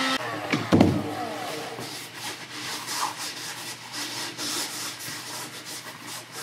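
Handheld heat gun switched off, its fan winding down with a falling whine, then a knock as it is set down on the workbench, followed by light rubbing and handling noises of EVA foam pieces.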